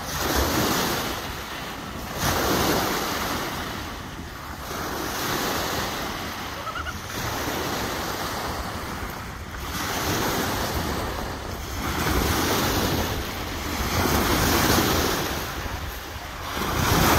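Small lake waves breaking and washing up a pebble beach, the surf swelling and falling away every two to three seconds. Wind is on the microphone.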